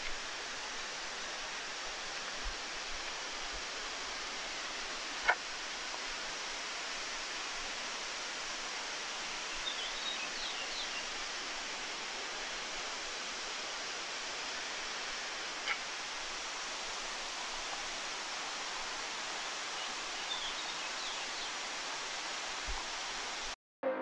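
Steady rushing roar of a large waterfall. A sharp click comes about five seconds in, and a few faint high chirps come later. The sound cuts off suddenly just before the end.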